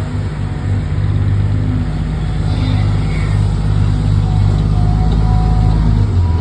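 Truck engine sound running steadily, a low drone that rises and falls slightly.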